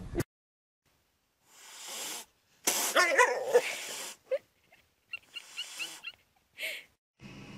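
A pet animal calling: a breathy sound, then a loud call with a wavering pitch about three seconds in, followed by a few short, fainter sounds.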